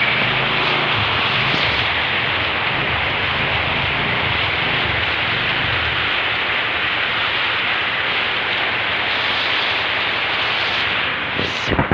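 Heavy rain falling, a steady dense hiss, with a few loud low thumps near the end.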